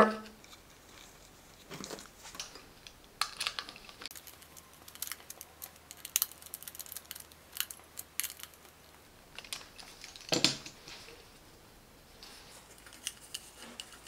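Quiet clicks, taps and scrapes of hands handling a plastic Reolink video doorbell and its wires while the wires are fastened to its terminal screws, with one louder knock about ten seconds in.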